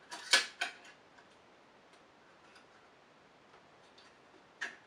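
Glass build plate of an Ultimaker 2 Go sliding into place on the print bed between its clamps, knocking against the metal. A few sharp clicks come in the first second, then a quiet stretch, then two more clicks near the end.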